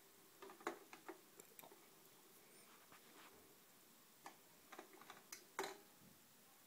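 Near silence with faint, irregular clicks and ticks, the sharpest a little under a second in and again near the end.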